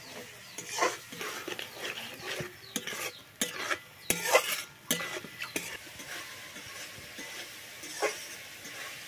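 Metal spatula scraping and stirring in a steel kadai, with irregular clinks and scrapes. Spice paste sizzles in the hot oil underneath.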